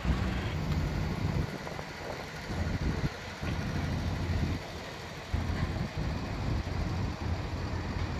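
Low, steady rumble of a houseboat's engine under way, with wind buffeting the microphone in uneven gusts.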